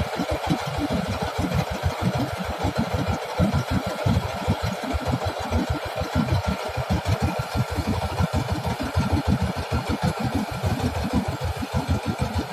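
Rice combine harvester running at work: a steady engine and machinery drone with a rapid, uneven low throb.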